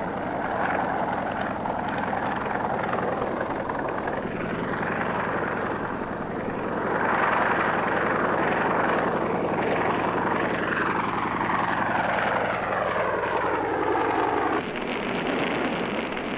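Light helicopter flying low, its engine and rotor running steadily. From about two-thirds of the way in, its whine slides down in pitch over several seconds, then cuts off suddenly near the end, giving way to a rushing noise.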